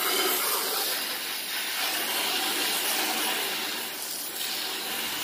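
Garden hose spraying a steady stream of water against an aluminum pontoon tube, rinsing off toilet bowl cleaner that was left to sit. The spray hisses and spatters steadily and eases slightly about four seconds in.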